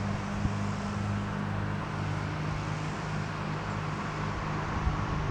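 A steady low motor hum over a constant background hiss, with a few faint knocks.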